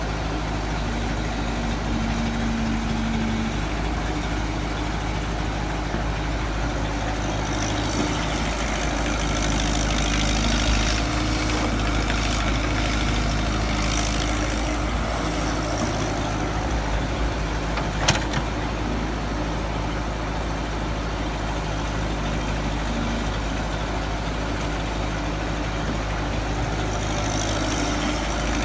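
Excavator's diesel engine running steadily, with stretches of hiss in the middle and a single sharp knock about eighteen seconds in.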